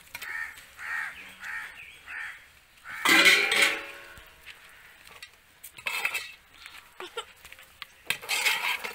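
Crows cawing several times in quick succession, then steel pots clanking loudly about three seconds in as marinated chicken is tipped from one steel pot into another, followed by a steel ladle scraping and clinking against the pot as the chicken is stirred.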